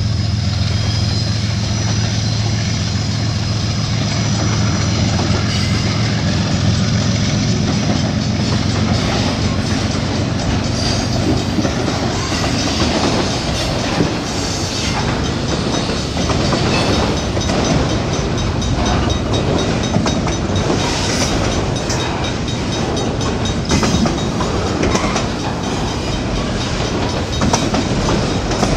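Freight train of autorack cars rolling past close by: a steady rumble of wheels on rail with clickety-clack and occasional sharp clanks of wheels over rail joints. The throb of the diesel locomotive's engine fades out over the first few seconds as it moves away.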